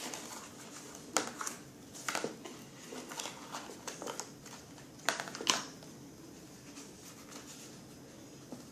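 Packaging being handled as a Nerf blaster is freed from its box: rustling with a few sharp clicks and snaps, the loudest about five seconds in.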